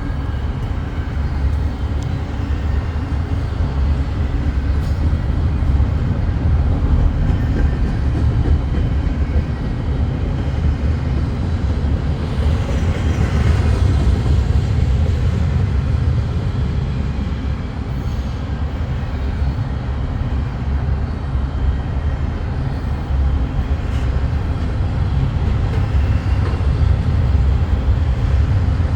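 Intermodal freight train rolling past, a steady heavy low rumble of the locomotives and cars on the rails.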